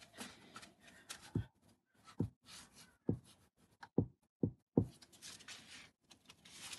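Large flat stone slab being rocked and pressed into place on the stones beneath it, knocking dully about six times as it shifts, with a soft scraping noise near the end.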